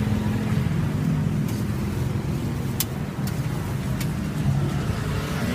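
Steady low mechanical hum, with a few short, sharp clicks of metal utensils.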